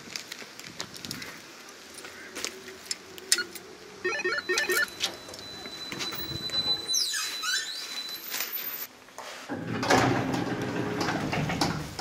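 Electronic intercom lock on a building's entrance door: a quick run of beeps, then a steady high electronic tone while the lock releases, and a squealing creak as the door swings open. Louder shuffling and rustling follow near the end.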